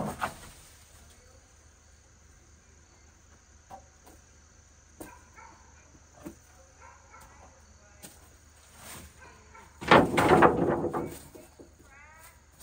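Cut-off poplar edging strips clattering as they are thrown onto a wood slab pile: one loud clatter lasting about a second, about ten seconds in. A knock comes at the start and a few light knocks fall in between, over a steady faint insect trill.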